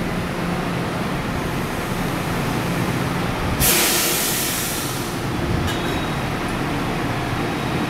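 Taiwan Railway EMU600 electric commuter train rolling slowly with a low rumble and hum as it comes to a stop. About three and a half seconds in there is a loud hiss of air, typical of the brakes venting as the train halts, lasting about a second and a half, followed by a short click.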